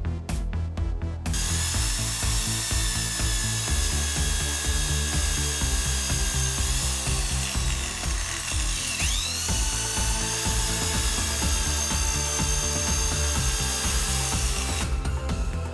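Handheld Makita electric drill running and boring into the metal column of a milling machine, a high whine that starts about a second in and stops near the end, with its pitch dipping briefly and recovering partway through. Electronic music with a steady beat plays underneath.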